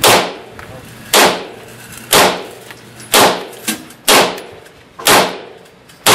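Single gunshots fired at a slow, steady pace, about one a second, roughly six in all, each one ringing off the walls and baffles of an indoor firing range. A fainter crack comes between the fourth and fifth.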